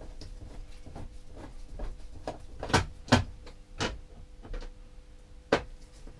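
Clicks and knocks as a solar charge controller is handled and fitted against the shed wall. About five sharp knocks fall in the second half, the loudest just after three seconds in, over a faint steady hum.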